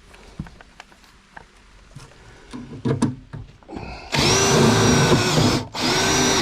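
Power drill driving a self-drilling tech screw into sheet metal, the motor whining in two trigger pulls, a longer one about four seconds in and a short one near the end, after some light clicking and handling.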